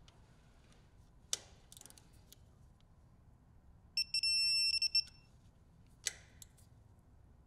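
Electronic beeping of a digital torque wrench: a high beep that pulses several times for about a second, about four seconds in, signalling that the oil drain plug has reached its set torque of 15 ft-lbs (20 Nm). A sharp click of metal on metal comes before it and another after.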